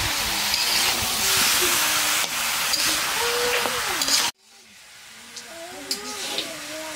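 Mutton frying with spices in a cooking pot: a loud, steady sizzling hiss that cuts off abruptly about four seconds in, followed by a much fainter sizzle that slowly grows louder.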